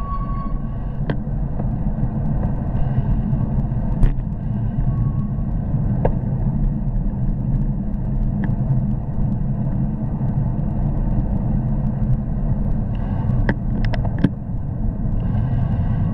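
Steady low rumble of wind on a moving bicycle camera's microphone, mixed with road traffic, with a sharp click about four seconds in and a quick cluster of clicks near the end.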